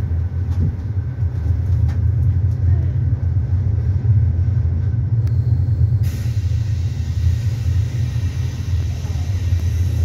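Passenger train running on rails, heard from inside the carriage as it pulls into a station: a steady low rumble with a few faint clicks in the first two seconds, and a higher hiss joining about six seconds in.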